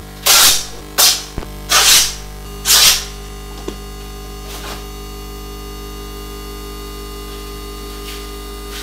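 Cloth being torn: four short, loud rips in the first three seconds, over a steady electronic drone with a hum.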